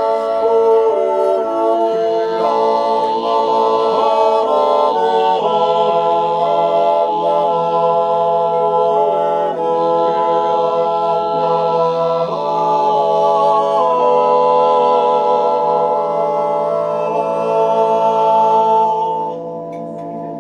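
Silvesterchläuse singing a Zäuerli, the wordless Appenzell yodel: several men's voices holding slow, sustained chords that shift from note to note, dying away near the end.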